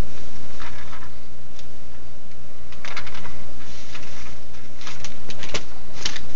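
Newspaper ad flyers rustling and crinkling as they are handled, leafed and folded, in scattered short crackles about a second in, around three seconds and in a quick cluster near the end, over a steady low hum.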